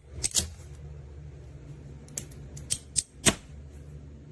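A series of sharp clicks and taps from handling an aluminium poster frame: two close together near the start, then four more spread over the last half, the last of them the loudest. A low steady hum runs underneath.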